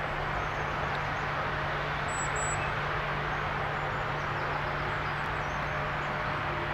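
Steady outdoor background noise, an even rushing hiss over a constant low hum, with two brief high chirps about two seconds in.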